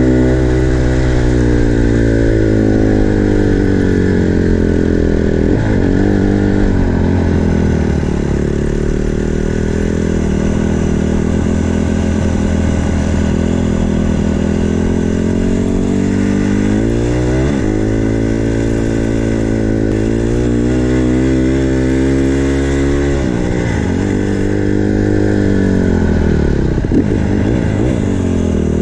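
Small single-cylinder four-stroke dirt bike engine running under way. Its pitch rises and falls with the throttle, with a few quick drops in pitch.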